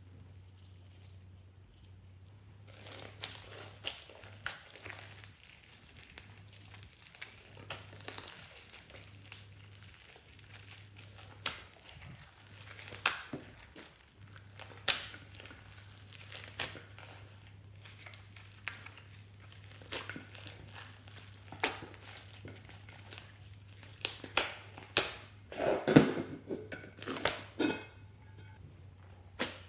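Slime loaded with foam beads, sequins and glitter being mixed and squeezed by hand, giving many small crackles, clicks and squelches. The crackling starts a couple of seconds in and is loudest about three-quarters of the way through.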